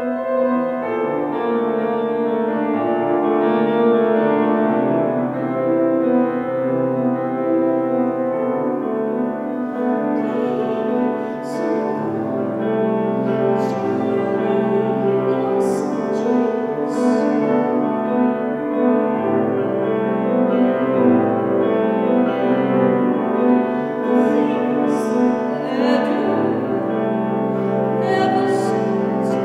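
Solo piano playing slow sustained chords, with a woman's singing voice joining about ten seconds in.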